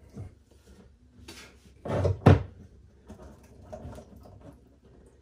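Knocks and clatter of tools and plumbing fittings inside a kitchen sink base cabinet as the old water supply lines are loosened with pliers, with one sharp loud knock a little over two seconds in.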